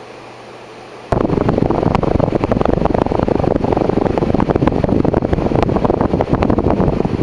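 Downdraft from a 1984 Golden Fan ceiling fan on high speed: a faint steady whoosh, then about a second in the air suddenly hits the microphone as loud, uneven wind noise that carries on.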